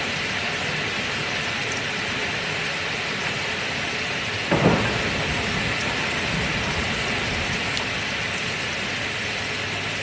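Steady heavy rain hissing, with a sudden clap of thunder about halfway through that trails off into a brief low rumble.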